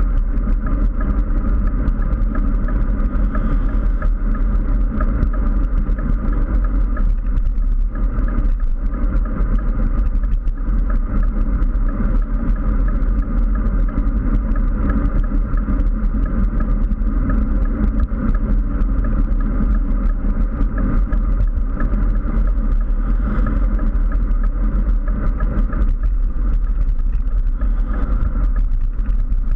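Steady wind and road noise on a GoPro mounted on a road bike at riding speed: a constant low rumble and rush with no breaks.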